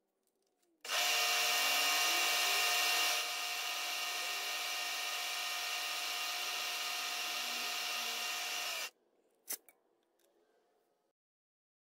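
Small machine spindle running with a steady high-pitched whine while a fine drill bit bores a hole in a white plastic ornament; it starts suddenly about a second in, drops a little in level shortly after, and stops abruptly after about eight seconds. A single sharp click follows.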